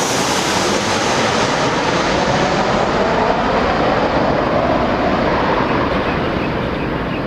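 Jet airliner passing close by on landing approach: a loud, steady rushing engine noise that eases slightly near the end.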